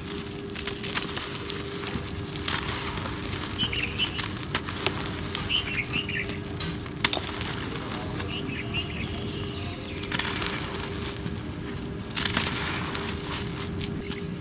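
Dry, gritty cement clumps crushed and crumbled between the fingers: irregular crackling and snapping with grit and fine grains trickling down.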